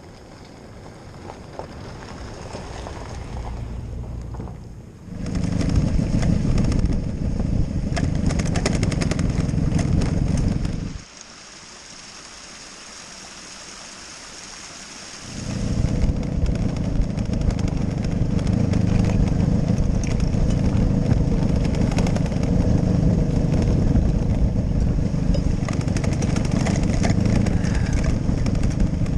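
Motorcycle riding on a wet dirt road, its engine running under a heavy low rumble of wind on the microphone that builds over the first few seconds. About eleven seconds in this drops for a few seconds to a softer, steady hiss of a small waterfall, then the motorcycle rumble resumes.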